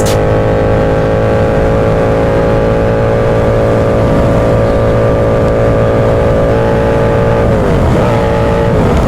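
Motorcycle engine running at steady high revs while riding, over a rush of wind and road noise. Near the end the revs fall twice.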